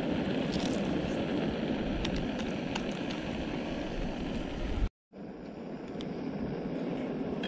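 Metal spoon stirring and clinking in a steel camp pot, a few sharp taps, over a steady rushing background noise. After a cut about five seconds in, only a quieter steady rush remains.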